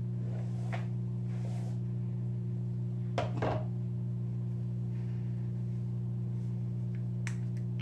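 Steady low hum under soft rustling and small handling noises of hands braiding long damp hair, with a short louder rustle about three seconds in and a faint click near the end.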